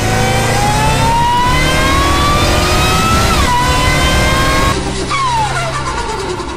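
A car engine accelerating hard: its note climbs steadily, drops sharply at one upshift about three and a half seconds in, climbs again, then falls away near the end.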